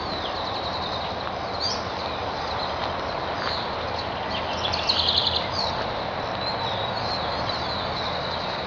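Small birds chirping and whistling over a steady background hiss and rumble, with a quick, rapid trill about five seconds in.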